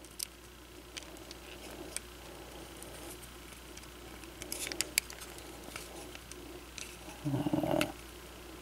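Small plastic gap-filler pieces being handled and pressed into a plastic Transformers action figure: faint scattered clicks and taps, with a short cluster of sharper clicks about halfway. A short low sound comes near the end.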